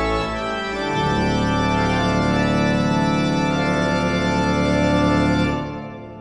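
Intro music of long held chords that fade out near the end.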